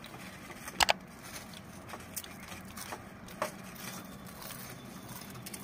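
Crisp potato wafers crunching and crackling as they are eaten and broken by hand, with a sharp double crack about a second in and a few fainter cracks after.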